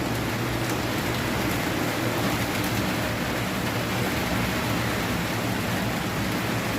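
Consul CWB09BB 9 kg washing machine spinning up with a load of two bedsheets, giving a steady rushing noise over the drum and motor.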